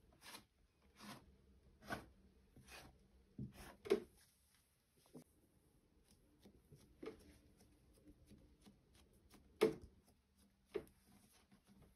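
Faint knocks and rubbing from hands preparing food on a kitchen work surface: a stroke about every second for the first four seconds, then a few scattered ones, the loudest a little before ten seconds.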